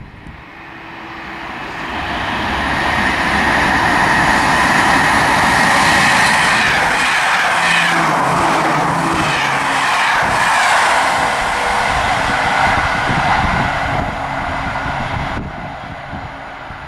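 Double-deck passenger train passing through a station at speed: a rising rush as it approaches, a rapid clatter of wheels as the coaches go by in the middle, then a fading roll as it moves away.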